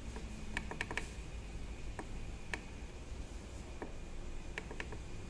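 Plastic panel buttons of a Yamaha PSR-E263 keyboard clicking as they are pressed one at a time to step the tuning value back to 440 Hz. There are about ten clicks: a quick run of four or five about half a second in, then single presses spaced out.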